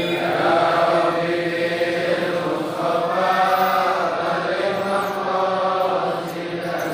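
Men's voices chanting sholawat, Arabic devotional praises of the Prophet, together in long drawn-out notes that rise and fall.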